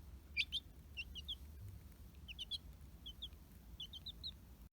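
A young chick peeping: short, high chirps in quick clusters of two or three, repeated about five times.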